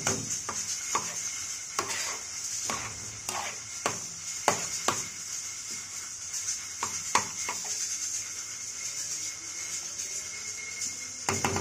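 Steel spoon knocking and scraping against a steel karahi while stirring thick meat gravy: irregular sharp clinks, roughly one every second, over a steady high hiss.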